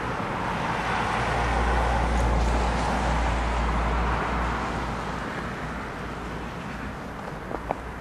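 Road traffic noise: a passing vehicle's rushing sound swells over the first seconds, peaks, then fades away, over a low rumble.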